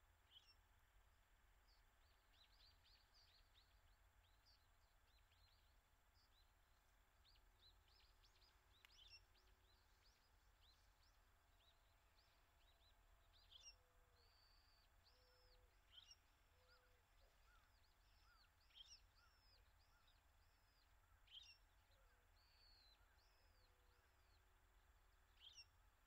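Faint chirping of Eurasian tree sparrows: quick runs of short high calls at first, then single louder chirps every two or three seconds.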